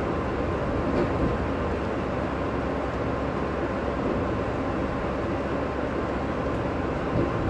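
NO.DO.KA diesel train running at speed, heard from inside: a steady rumble of running noise, with a few faint knocks about a second in and again near the end.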